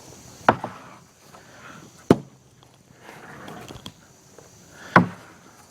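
Three sharp wooden knocks at uneven intervals, typical of sawn boards being handled and set down.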